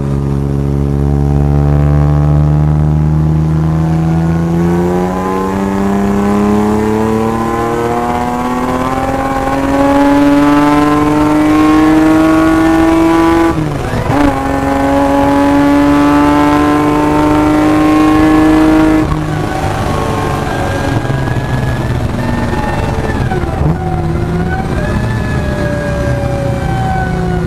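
Supercharged BMW M50B25 straight-six of an E36 325i Compact under hard acceleration, heard from inside the car. The engine note climbs slowly through a long gear, drops with an upshift about halfway, climbs again, then falls away about two-thirds of the way in as the throttle is lifted. After that the revs rise and fall unevenly.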